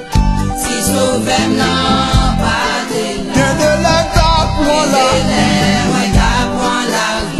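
Gospel song: singing with a choir over a backing band.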